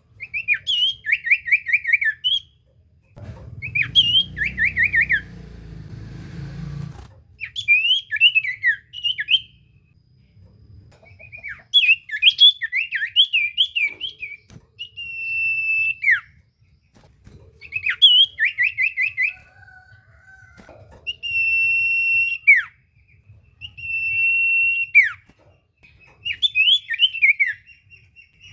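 Common iora (cipoh) singing: short phrases of rapid chirps alternating with long, level whistles that dip sharply at the end, repeated many times. A low rumbling noise sits under the song from about three to seven seconds in.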